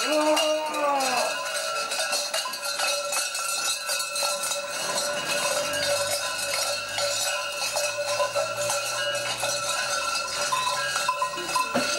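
Cowbells worn by parklji (Slovenian St. Nicholas devils) clanging fast and without pause as they walk, with a steady ringing tone over the clatter.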